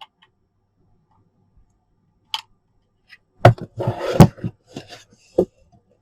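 Handling noise from the fan and its USB cable. A few sharp clicks come first, then a flurry of knocks and rustling about halfway through, and one last knock near the end.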